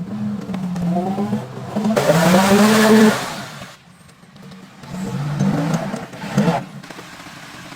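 Vehicle engine revving: its pitch rises and it is loudest about two to three seconds in, then it drops off. A second, shorter rev comes about six seconds in.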